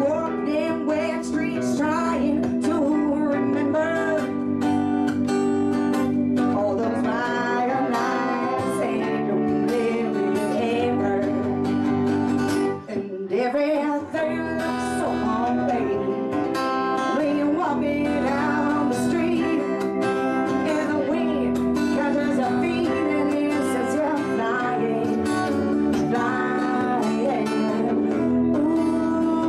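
Live acoustic band playing a song: a woman sings lead over a strummed acoustic guitar, a mandolin and a keyboard. The music breaks off briefly about 13 seconds in.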